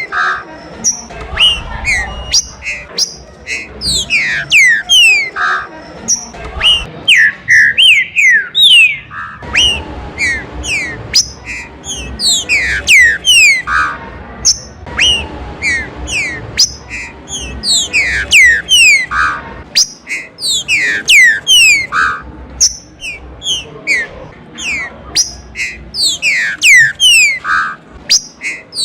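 Green-winged saltators (trinca-ferro) singing, with many quick, steeply falling whistled notes overlapping one another, mixed with a few short lower notes.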